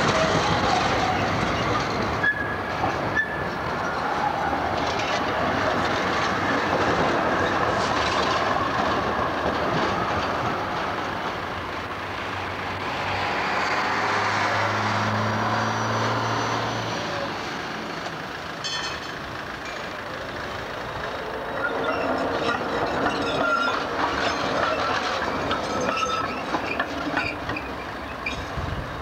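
Amsterdam city trams running on street track: steady rolling noise of steel wheels on rails, with high-pitched squeal from the wheels at the start and again near the end, and a low hum about halfway through.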